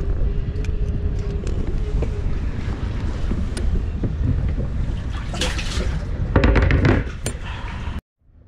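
Wind buffeting the microphone over a low rumble, with a louder rush of noise and clicks about five and a half seconds in. The sound cuts off abruptly near the end.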